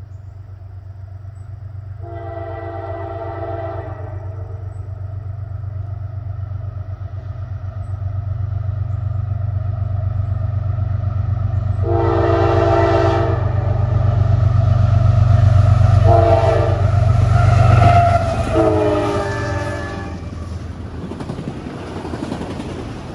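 Diesel freight locomotive sounding its horn in the grade-crossing pattern: long, long, short, long. The horn rides over a steady engine rumble that grows louder as the train approaches at speed and eases after the last blast, leaving the rush and clatter of the passing cars.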